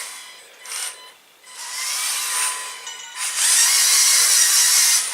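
Electric motors and plastic gears of a LEGO Technic remote-control rally car whirring as it drives, in three bursts: a short one under a second in, another around two seconds, and a longer, louder one from about three seconds on. A faint whine rises and falls with the motor speed.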